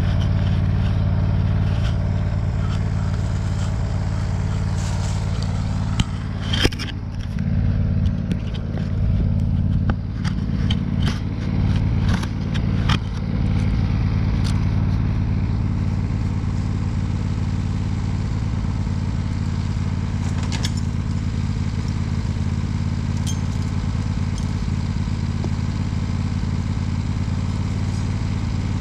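A small petrol engine idling steadily. Between about six and thirteen seconds in, rustling and sharp knocks from the camera being handled and set down.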